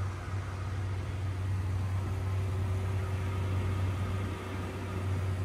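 Fishing boat's engine running steadily under way: an even low drone, with the rushing hiss of water from the wake over it.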